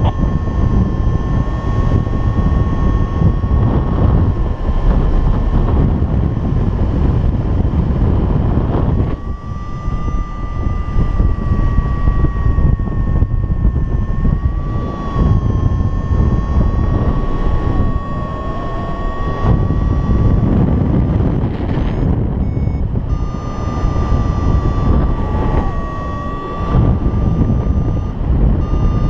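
Wind rushing over the microphone in paraglider flight, with a flight variometer's steady high electronic tone over it. The tone wavers slightly in pitch and drops out briefly a couple of times, coming back a little higher.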